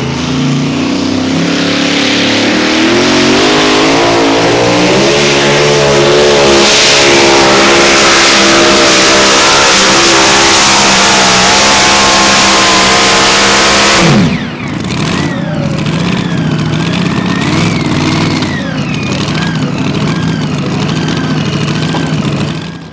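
Pulling truck's engine run hard under load, its pitch climbing steadily for about fourteen seconds, then dropping off suddenly to a lower, uneven running.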